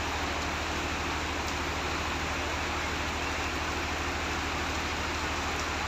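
Heavy rain falling in a steady, even hiss, with a low steady hum underneath.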